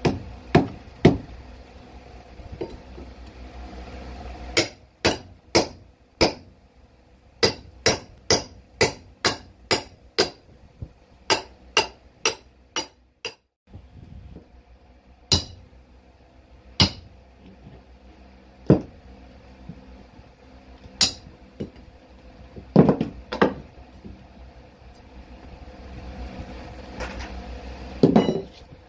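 Claw hammer striking the cut edge of a subfloor: a few blows, then a steady run of about a dozen sharp blows, roughly two a second, that breaks off about halfway through. After that come only a few scattered knocks and thuds.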